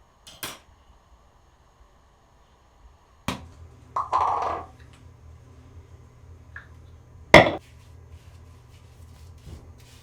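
A series of sharp knocks or bangs: one soon after the start, another about three seconds in followed by a short rough scraping sound, and the loudest about seven seconds in. A steady low hum comes in with the second knock.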